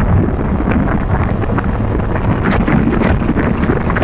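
Wind buffeting the microphone together with the steady road and engine noise of a moving car, filmed out of its side window. Loud and even throughout.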